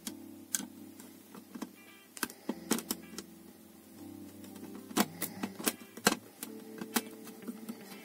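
Irregular sharp clicks and taps of a screwdriver and plastic parts as a wall switch-box assembly is fitted together and screwed closed, with a cluster of louder clicks about five to six seconds in.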